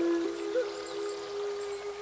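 Slow, quiet instrumental music: a flute holding long, low notes one after another, with a small bend in pitch about half a second in.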